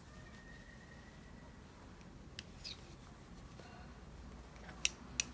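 Metal knitting needles clicking together as stitches of a one-by-one rib are worked: a few faint, sharp clicks, one about halfway through and two close together near the end.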